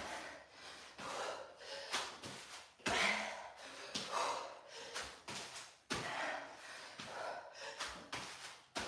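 Heavy breathing and gasping from a person exercising hard through burpees, with a sharp thump every second or two as feet and hands hit the floor.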